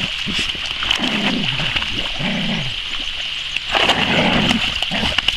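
Polish hounds growling in play, three short rough growls, the longest and loudest near the end, while water splashes as one dog thrashes in the pond.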